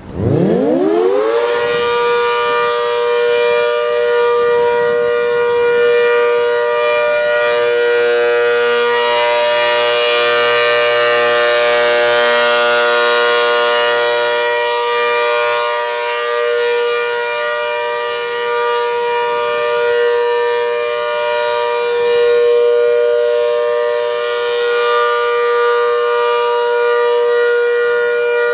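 ACA Hurricane electromechanical outdoor warning siren winding up from a low growl to full pitch in about a second and a half, then holding a loud, steady two-note tone, its volume swelling and fading gently.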